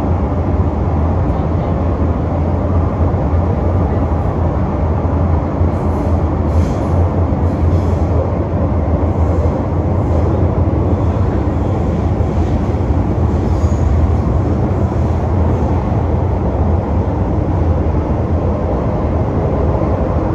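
Interior of an MTR Metro-Cammell M-Train carriage running through a tunnel: a steady, loud rumble of wheels on rail and running gear.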